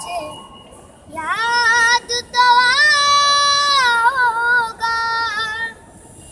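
A young boy singing solo, drawing out long held notes with a wavering pitch, broken by a short pause about two seconds in. He stops shortly before the end.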